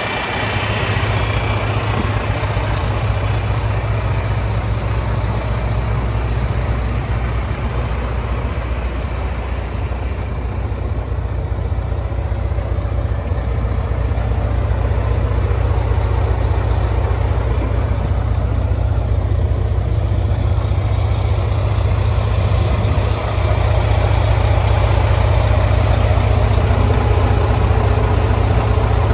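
Volvo D13 inline-six diesel engine of a 2011 Volvo truck idling steadily, growing a little louder late on.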